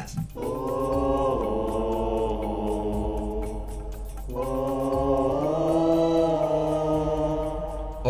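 Low chant-like singing in two long held notes, the second starting about four seconds in.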